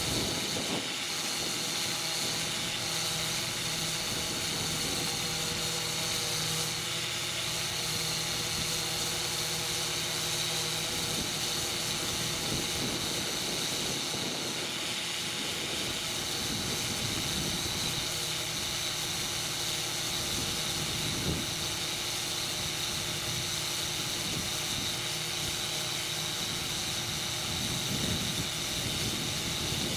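Air compressor running steadily with a hiss of air, inflating a 20.8R38 tractor-tyre inner tube.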